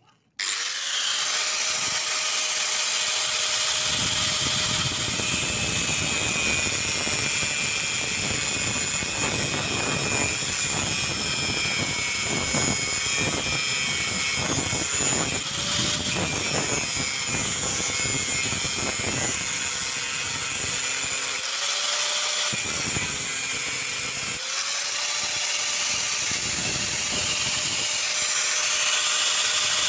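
Angle grinder with a thin cut-off disc cutting into steel angle iron: a steady high whine with rough grinding noise while the disc bites. It starts abruptly, and its pitch dips and recovers a few times.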